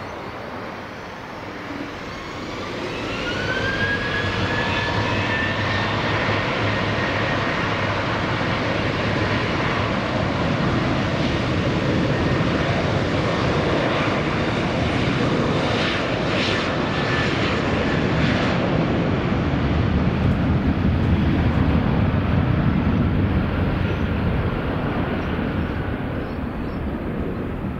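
Airliner's engines spooling up for takeoff: a rising whine a couple of seconds in, then a steady, growing roar as the aircraft accelerates down the runway, loudest after about twenty seconds and easing near the end.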